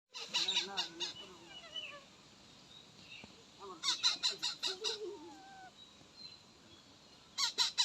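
Indian ringneck parrot calling: three runs of short, loud, rapid calls, about six a second, near the start, in the middle and at the end, with softer gliding notes between the runs.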